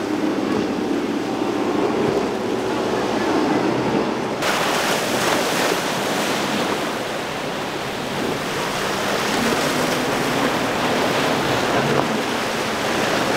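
Outboard engines running under the rush of hull spray as a center-console boat speeds through rough water. About four seconds in, the sound switches to a louder, wider rush of breaking waves and spray, with wind on the microphone, as a boat crashes through the chop.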